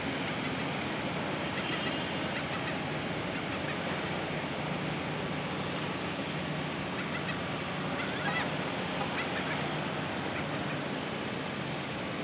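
Outdoor industrial-yard ambience: a steady wash of noise with a low hum under it, and a few short high chirps or squeaks scattered through it.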